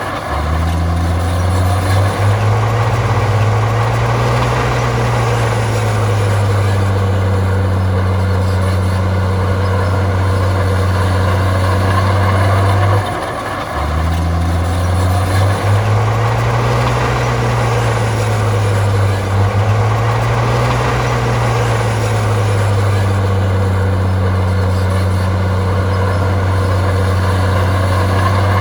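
Komatsu bulldozer's diesel engine running loudly under load. Its pitch swells up and back down as it works, with a short dip in the engine sound about every 14 seconds.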